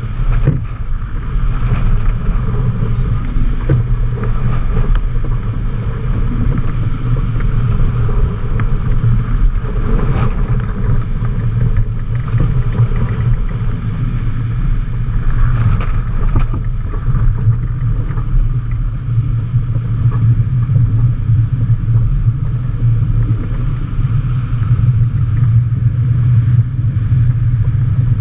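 Wind buffeting the camera microphone over the rush of water along the hull of a racing yacht surfing downwind at 15-plus knots: a loud, steady rumble, with a few brief knocks.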